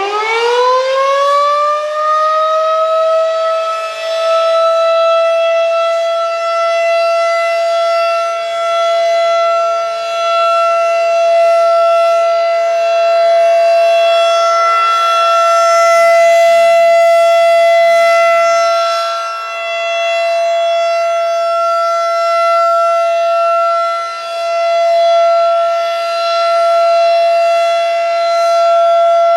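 Federal Signal 2001-DC rotating outdoor warning siren finishing its wind-up over the first couple of seconds, then holding a steady single-tone wail, loud, its level gently dipping and swelling.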